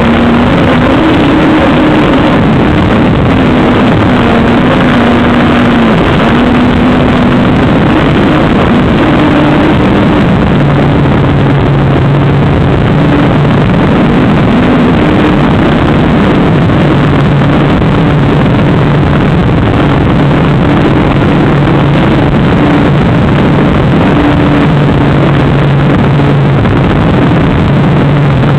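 Motor and propeller of a small aircraft carrying the camera, droning steadily under a loud rush of air. The drone's pitch falls about ten seconds in and stays lower, as the throttle is eased back.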